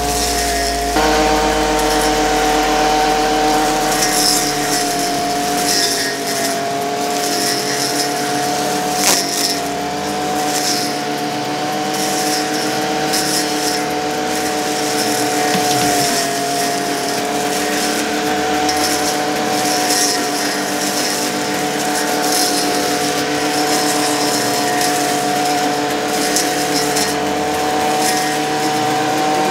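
Ryobi 2350 brush cutter's small petrol engine running at a steady, high speed.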